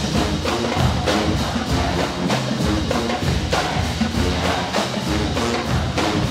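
College marching band playing: drums hit a steady, driving beat under low brass such as sousaphones.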